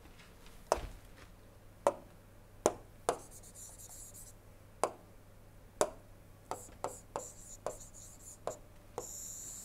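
Pen stylus tapping and scratching on a tablet screen while erasing and rewriting handwriting. About a dozen sharp separate taps, with two short scratchy strokes, one about three seconds in and one near the end.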